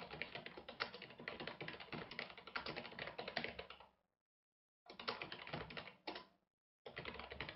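Computer keyboard typing, fast runs of keystrokes picked up faintly by a headset microphone, in three stretches with dead silence between them.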